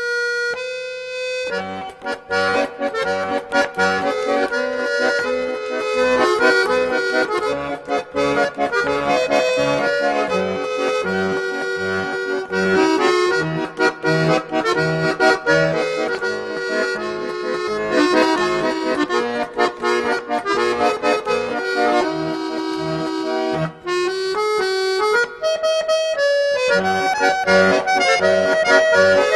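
Instrumental music with a sustained melody over a steady bass beat.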